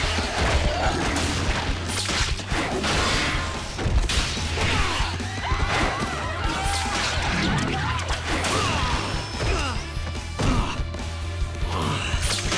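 Cartoon fight sound effects: a string of punches, thuds and crashes, one every second or two, over background music.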